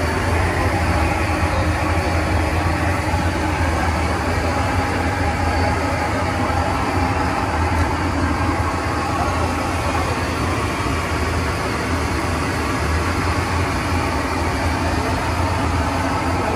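A loud, steady mechanical rumble with a deep hum and no clear strokes or breaks.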